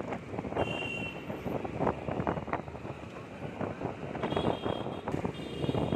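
Scooter ride through street traffic: the scooter's engine and road noise with wind buffeting the microphone, and a few short, high horn beeps from the surrounding traffic about a second in and twice near the end.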